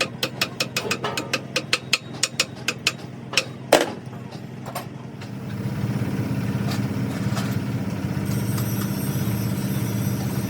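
A fast run of sharp metallic clicks, about four a second, ends with one louder click; about five seconds in, a motor starts running with a steady low drone.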